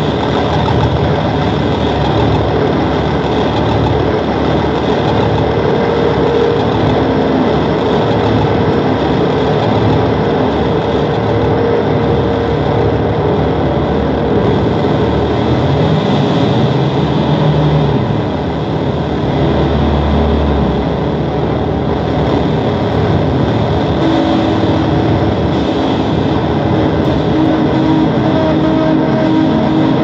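Noise music: a loud, dense wall of rumbling hiss with held drone tones, a few sliding pitches partway through, and a deep low swell about twenty seconds in.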